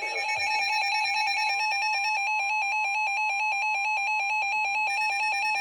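Emergency Alert System attention signal between weather warnings: a loud, steady electronic two-tone alert with a fast pulsing flutter, the second tone joining about a second and a half in.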